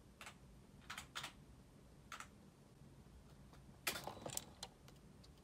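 A few scattered computer keyboard keystrokes, with a quicker cluster of several clicks about four seconds in.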